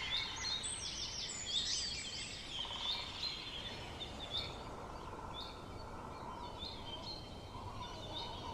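Small birds chirping, many short quick calls that are busiest in the first three seconds and thin out after, over a steady background hiss.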